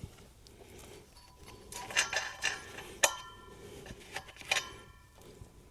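Light metallic clicks and clinks of speaker-cable connectors being handled and tried on an amplifier's binding posts, a cluster about two seconds in, then a sharper click with a brief ring about three seconds in and another click near the end.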